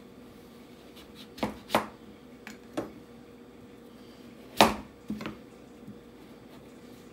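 Chef's knife chopping through raw peeled butternut squash onto a plastic cutting board: about six separate strikes at uneven intervals, the loudest about four and a half seconds in. A faint steady hum runs underneath.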